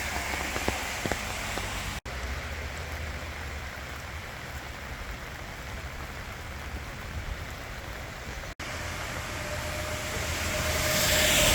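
Steady rain falling on a forest, an even hiss with scattered drips, broken twice by brief cut-outs. Near the end a rushing engine noise with a steady hum swells in over the rain.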